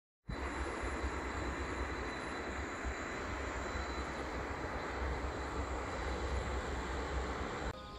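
Strong wind blowing across the microphone: a steady rushing noise with a gusting low rumble. It starts suddenly just after the beginning and cuts off near the end.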